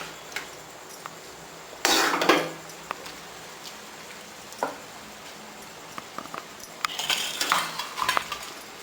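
A spoon stirring soaked flattened rice in a pan of gravy, with a loud scrape against the pan about two seconds in and a cluster of clinks and scrapes near the end.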